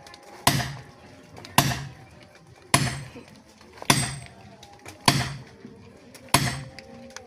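Steady chopping: six sharp, heavy strikes, about one every 1.2 seconds, each dying away quickly.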